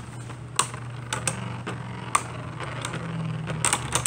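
Two Hasbro Beyblade Burst spinning tops knocking together in the stadium bowl: scattered sharp plastic clicks, turning into a quick run of clattering near the end as they collide.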